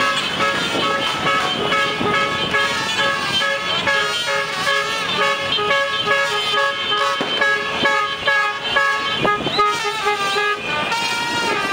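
Vehicle horns honking over and over, short and longer blasts overlapping one another, over the noise of a passing procession of cars and motorbikes.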